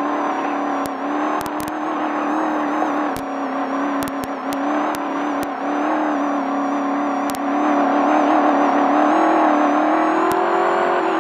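Desert race truck's engine running hard at a steady pitch, which lifts a little and gets louder about two-thirds of the way through, with scattered sharp clicks over it.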